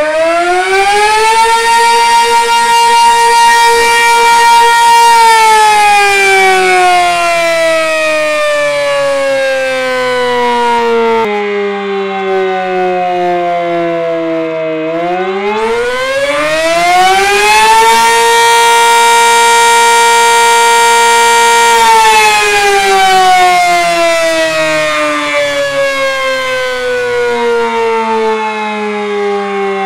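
Sterling Model M motor-driven fire siren on a test run, high-pitched. It climbs to full pitch about a second in and holds there a few seconds, then winds down. About halfway through it rises again to hold once more, and winds down near the end.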